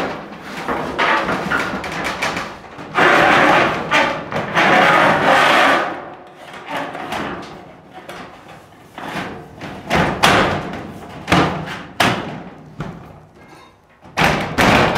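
Ribbed steel ceiling panel being worked into place overhead, scraping and rattling against the framing, followed by several sharp knocks and thuds in the last few seconds.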